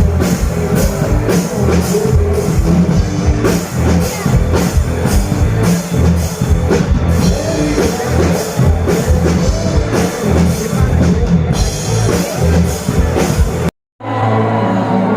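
Loud band music with a driving drum-kit beat. It cuts to silence for a split second near the end and comes back with a different, more sustained sound.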